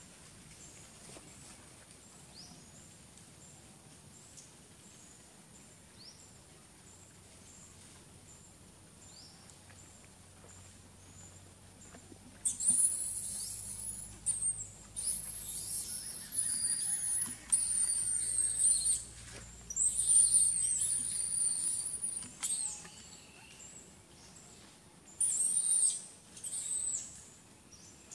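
High-pitched, wavering animal calls in repeated bursts of a second or two, starting about halfway in and stopping shortly before the end; before them only faint, small chirps.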